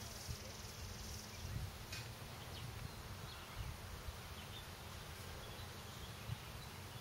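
Quiet outdoor ambience: an uneven low wind rumble on the microphone, with a high insect hum that stops about a second and a half in and a few faint bird chirps.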